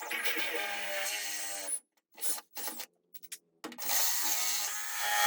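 DeWalt 20-volt cordless drill running as an 1/8 inch bit is drilled into a fiberglass hood: a steady motor whine, stopped after a couple of seconds, then short trigger spurts, then steady running again. The bit catches on the fiberglass's multiple layers.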